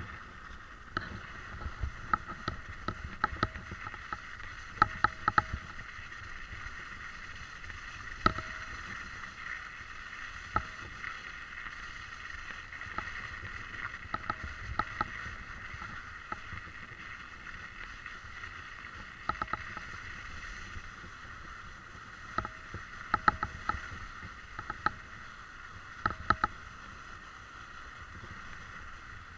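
Steady hiss of a body-worn camera moving over a snowy dirt track, broken by many irregular sharp clicks and knocks.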